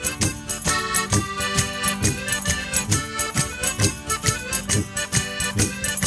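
Instrumental break of an Italian folk song: an accordion plays the tune over a steady, quick percussive beat.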